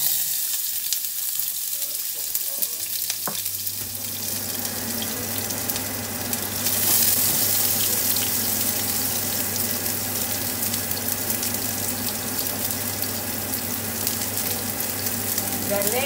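Diced onion sizzling in hot oil in a non-stick wok: the hiss starts suddenly as the onion is tipped in and carries on steadily, growing a little louder about seven seconds in.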